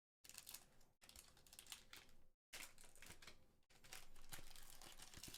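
Faint rustling and soft clicks of trading cards being handled and flicked through, with some crinkling of a foil booster-pack wrapper. The audio cuts out abruptly to silence a few times.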